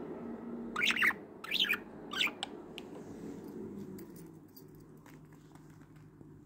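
Budgerigar chirping: three short calls in the first two and a half seconds, then only a faint low hum.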